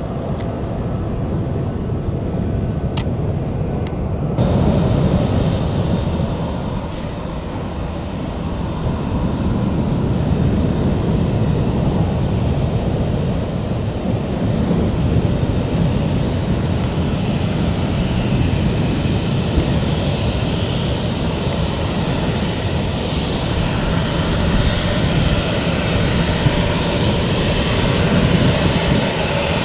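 Boeing 737-800's CFM56 turbofan engines running at taxi power, a steady jet rumble with a faint high whine that grows slightly louder toward the end. The first few seconds hold quieter airport ambience, which stops abruptly at a cut.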